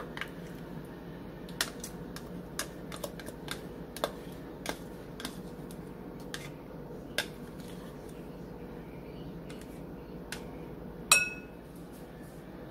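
Metal knife scraping and tapping against a measuring cup and a ceramic bowl as mayonnaise is scraped out: a string of light clicks, with one sharper ringing clink near the end. A steady low hum runs underneath.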